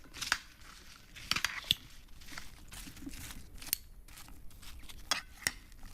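Crisp roast potatoes being tossed with crumbled feta in a roasting tray: soft scraping and rustling, with a few sharp clicks scattered through it.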